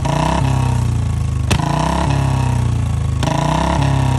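Royal Enfield Bullet single-cylinder engine, fitted with a short chrome silencer, revved in repeated throttle blips at a standstill, about one every second and a half. A sharp crack follows two of the blips, about a second and a half and three seconds in: exhaust pops the rider is trying to set off.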